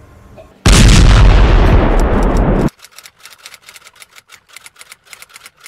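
A loud explosion sound effect, starting about half a second in, lasting about two seconds and cutting off abruptly. It is followed by a run of faint, sharp, rapid clicks.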